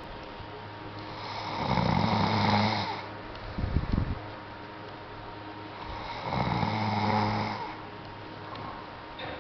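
A sleeping person snoring: two long, rasping snores about four and a half seconds apart, with a short fluttering burst just after the first.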